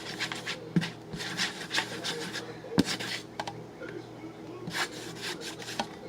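A utensil scraping and stirring around a bowl of slime mixture in irregular strokes, with one sharp knock against the bowl about halfway through. The glue and laundry-detergent slime is not coming together.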